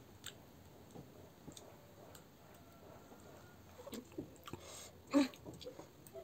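A person eating instant noodles: quiet chewing, with light clicks of a metal fork and spoon against the plate, and a short slurp a little after five seconds in as a forkful goes into the mouth.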